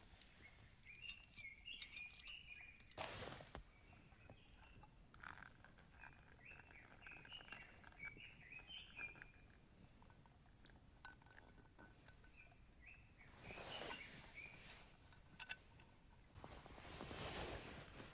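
Faint songbird calls: short runs of quick chirping notes in three bouts, with a few soft rustles and sharp clicks in between.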